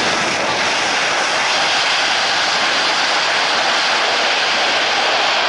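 Jet airliner engines running with a steady, loud rushing noise that holds even throughout.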